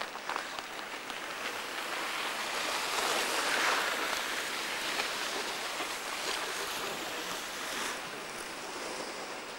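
Steady rushing hiss of skis sliding over packed snow, mixed with wind on the microphone, growing louder about three to four seconds in and then easing.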